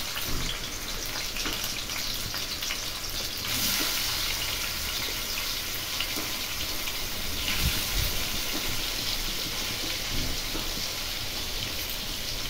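Paneer cubes frying in hot oil in a kadhai: a steady sizzle, louder for a few seconds from about three and a half seconds in.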